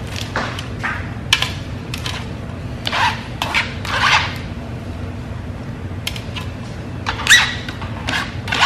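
Salad greens and crisp iceberg lettuce handled and torn apart by hand on a cutting board and sheet pan: scattered short crunches and rustles, over a steady low hum.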